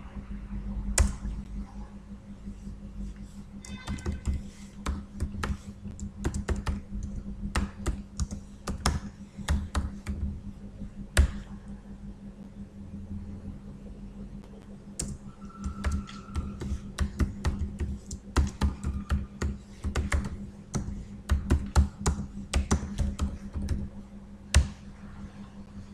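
Computer keyboard typing in irregular runs of keystrokes, over a steady low electrical hum.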